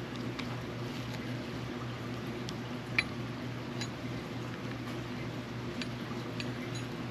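Light, scattered metal clicks and ticks from the small parts and tools of a spinning reel being taken apart, with one sharper click about three seconds in, over a steady low hum.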